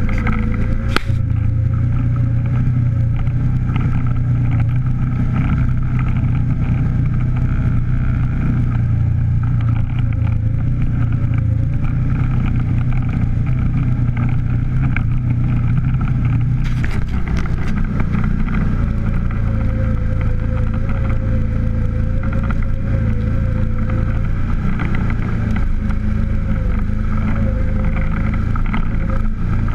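A vehicle engine running steadily under way, with a slightly wavering whine over a heavy low drone. There is a brief click about a second in, and the drone changes a little about two-thirds of the way through.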